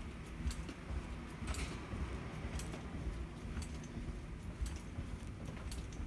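Walking down a carpeted corridor: light clinks of jingling keys about once a second in step with the stride, over a low steady rumble.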